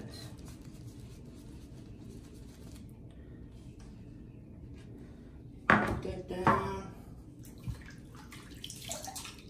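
Two loud splashes of water about six seconds in, as cupped hands throw water onto the face over a bathroom sink, followed by a few fainter splashes. Before them, only low room hum.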